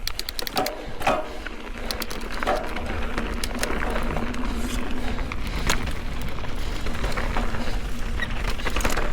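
Mountain bike rolling down a dirt and rock trail: a steady low rumble of tyres on the ground, with scattered clicks and knocks from the bike over the terrain and a quick run of clicks at the start.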